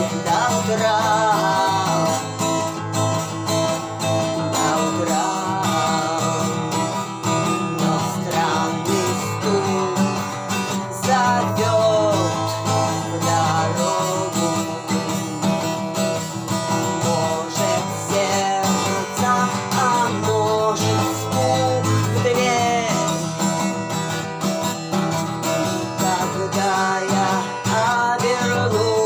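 Music: an acoustic guitar strummed steadily, with a voice singing a wavering melody over it.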